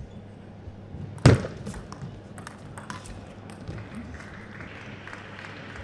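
Table tennis rally: a loud thump about a second in, then a few lighter, quick clicks of the ball on bat and table that stop about three seconds in as the point ends.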